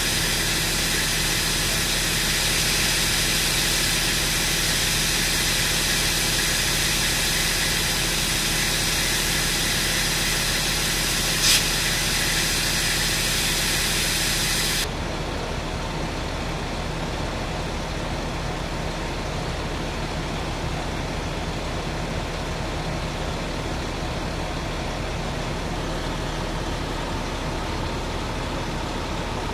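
Fire apparatus engines running steadily, a continuous idling drone with a high hiss over it. There is one short sharp click a little before halfway, and about halfway the hiss drops away abruptly, leaving a duller steady running sound.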